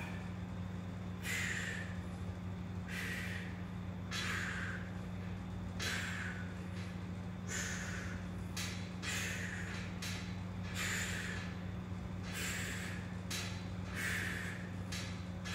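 A man's sharp, forceful breaths through nose and mouth, about one every one and a half seconds, each one the effort of a hanging knee raise on a pull-up bar. A steady low hum runs underneath.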